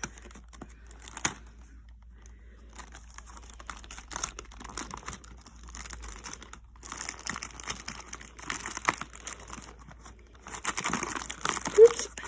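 Paper wrapping crinkling and rustling in handling bursts as a wrapped bath mallow is worked out of a cardboard advent calendar compartment. Scattered light clicks come first, and the crinkling grows busier in the second half. A short squeak-like tone near the end is the loudest moment.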